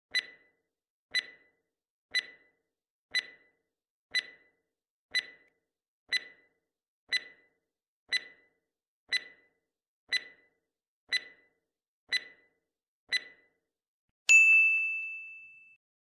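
Quiz countdown-timer sound effect: a short sharp tick once a second, thirteen times, then a louder ding that rings out and fades over about a second and a half as the countdown runs out and the answer is revealed.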